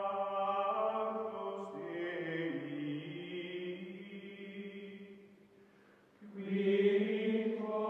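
Choir-like music of long held sung chords, shifting pitch a couple of times, fading out about five seconds in, then a new held chord swelling in about a second later.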